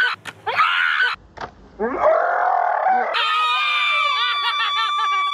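Excited screaming: two short high shrieks, then a louder scream, then one long high-pitched scream held for about two seconds, set off by a whipped-cream pie landing in someone's face.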